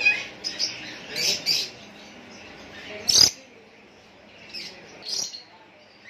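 Caged market birds calling: short, high squawks and chirps at irregular intervals, a cluster in the first second and a half, the loudest single call about three seconds in and a few fainter ones near the end.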